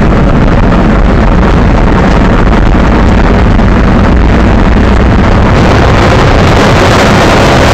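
Monster truck's engine running under load as it drives over a rough dirt track, very loud and steady, with wind buffeting the microphone.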